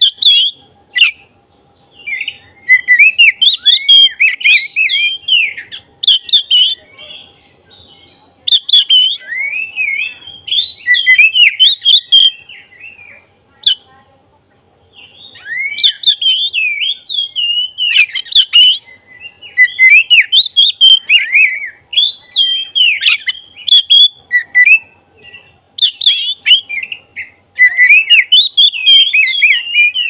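Oriental magpie-robin of the black-breasted (kacer dada hitam) form singing its full 'gacor' song, the kind played as a lure to provoke other magpie-robins into display. Long bouts of loud, fast, varied whistled phrases glide up and down, with short breaks about a third and halfway through.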